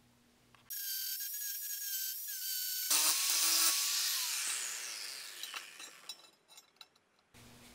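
Handheld angle grinder working steel angle iron, with a steady high whine for about two seconds. It is followed by a stretch where its whine falls in pitch and fades as the grinder spins down, with a few light clicks near the end.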